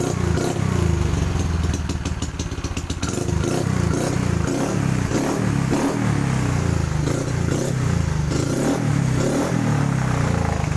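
Race-built fuel-injected motorcycle engine (59 mm big-bore cylinder, 32 mm throttle body) running shortly after a cold start. From about a third of the way in, its pitch repeatedly rises and falls as the throttle is blipped.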